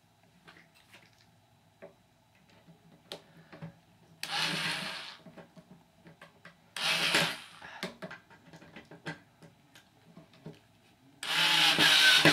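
Cordless power driver running in three short bursts, about 4 s in, about 7 s in and near the end, driving screws to mount a door closer, with small clicks and knocks of handling the screws and the closer between them.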